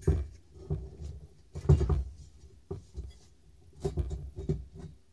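Hands shifting and lifting a heavy finned aluminium heatsink housing on a wooden workbench: a string of irregular knocks, bumps and scrapes. The heaviest thud comes about two seconds in, and another cluster of knocks comes near the end.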